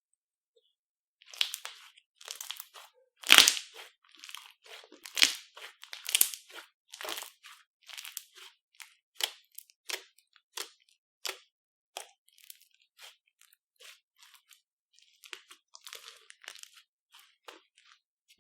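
Slime being mixed and squished, giving off irregular crunchy crackles and pops, densest and loudest a few seconds in.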